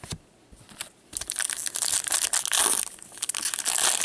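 A 2014-15 Upper Deck Masterpieces hockey card pack's foil wrapper being torn open and crinkled. It starts about a second in, after a few faint clicks, and goes on loud and crackling.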